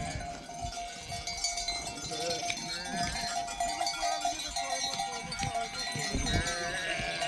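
A flock of sheep bleating, the calls wavering, with a livestock bell ringing on and off.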